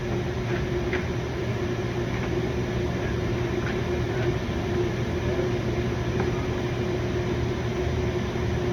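Steady mechanical hum with one constant tone and a low rumble, and a few faint light clicks scattered through.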